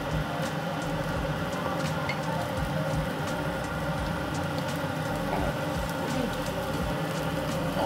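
Steady background noise in a yakiniku grill restaurant: a constant hum and hiss with light crackling and small clicks scattered through it.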